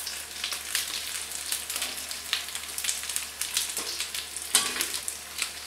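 Rabbitfish frying in a shallow pan of oil: a steady sizzle full of fine crackles and pops. A single louder knock about four and a half seconds in.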